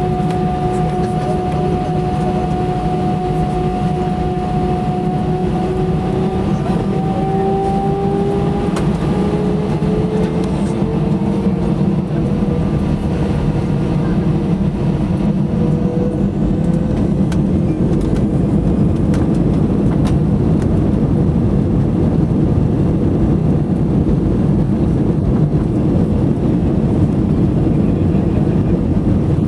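Airbus A320 engine and airflow noise heard inside the passenger cabin, a loud, steady roar. Over it a whine holds steady, then rises in pitch for several seconds and fades away about halfway through.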